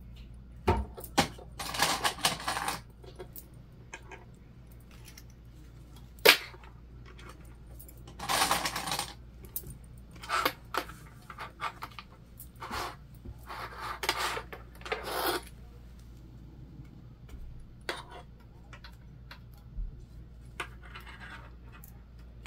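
Small plastic sewing clips clicking shut onto layers of vinyl, with the vinyl rustling as it is handled and lined up. Scattered sharp clicks and short rustles, loudest about six seconds in.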